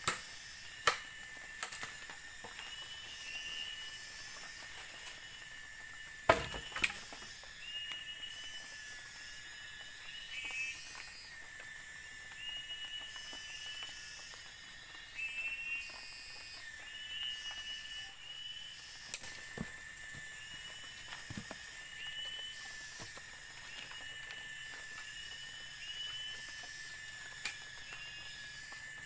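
Tropical forest insect chorus: a steady high drone with pulsing high-pitched trills and short chirps repeating about once a second. A few sharp knocks stand out, at the start, near one and two seconds, and a pair about six seconds in.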